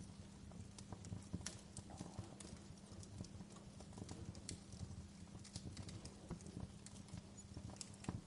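Wood fire crackling in a fireplace: irregular sharp pops and snaps over a steady low rumble, with a soft even hiss of rain behind it.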